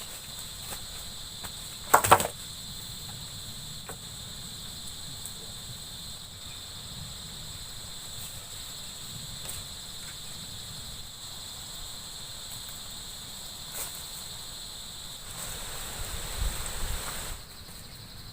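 Steady high-pitched insect chorus, a continuous shrill tone. A sharp knock comes about two seconds in, and a spell of rustling near the end.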